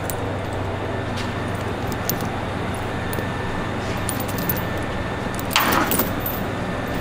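Links of a homemade steel tire chain clinking as the chain is worked over a tractor's rear tire, with a louder rattle of chain near the end, over a steady low hum.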